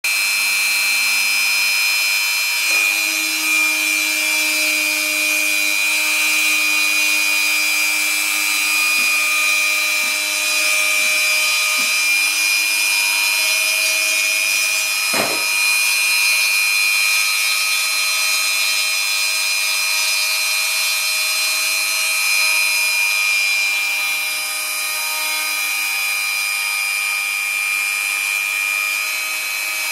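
A rotary tool spinning a cutting bit on a mostly printed CNC router, giving a steady high whine as it mills foam board. Under it, the machine's stepper motors hum at lower pitches that shift and stop and start as the axes move.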